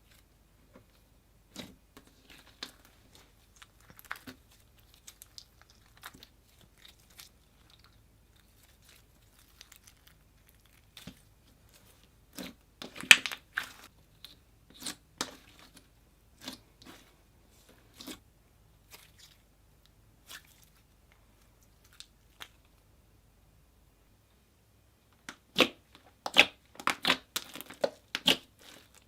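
Slime being worked by hand as pigment is mixed into it: scattered sticky clicks and crackles from trapped air, thickening into a quick run of louder pops near the end.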